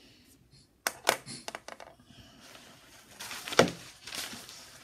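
Handling noise close to the recording device: a quick run of clicks and knocks about a second in, then rustling with a sharp knock about three and a half seconds in.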